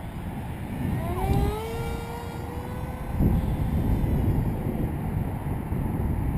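Electric motor and propeller of a small foam RC delta plane flying: a whine that rises in pitch about a second in, holds steady, then fades away, over wind buffeting the microphone.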